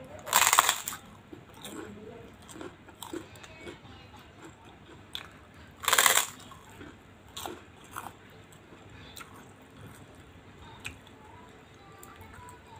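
Two loud crunches of biting into a large fried kerupuk cracker, about half a second in and again about six seconds in, with quieter crunching as the pieces are chewed.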